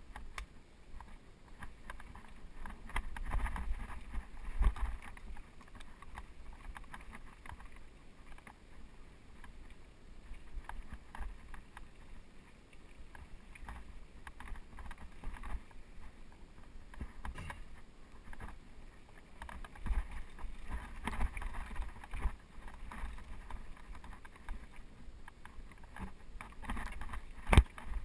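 Mountain bike riding over rocky dirt singletrack: tyres rolling over dirt and stones under a low rumble, with the bike rattling and irregular clunks over bumps, the loudest near the end.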